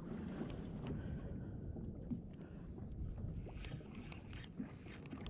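Wind and water noise aboard a small fishing boat at sea: a steady low rumble with no engine note. A few faint clicks or knocks come near the end.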